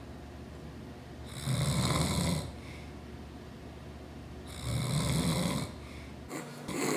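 A man snoring in his sleep: two long snores about three seconds apart, each lasting about a second, then a shorter, different sound near the end.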